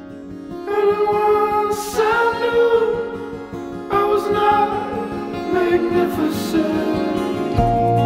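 Background music: a singing voice comes in about a second in, in phrases over a steady instrumental accompaniment.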